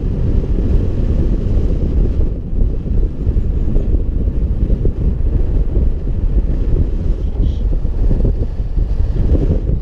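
Wind rushing over the microphone of a camera carried by a paraglider in flight: a loud, low rumble whose level keeps rising and falling.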